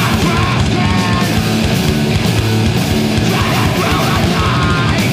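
Screamo/noise-rock recording playing loud: distorted guitars over fast, hard-hit drums.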